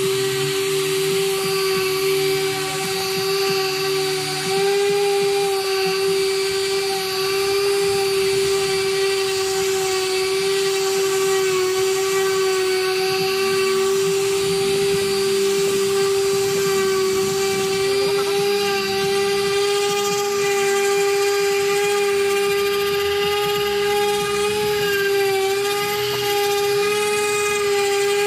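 Hyper Tough random orbital sander running steadily on the face of a wooden chopping board, a constant motor whine that holds nearly one pitch.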